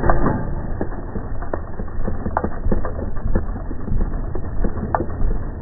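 Motor-driven sand sifter running: a steady low rumble under a dense, irregular clatter of clicks and knocks from the sifting mechanism as sand passes through the screen.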